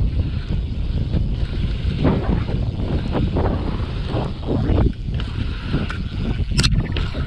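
Wind buffeting the microphone of a camera riding on a BMX bike, over the hum of its tyres rolling fast on an asphalt pump track, swelling and easing with each roller. A short sharp click sounds near the end.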